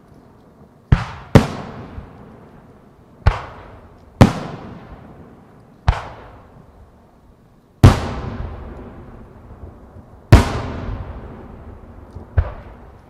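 Aerial firework shells bursting overhead: about eight sharp bangs at uneven intervals, each trailing off in a long echoing rumble.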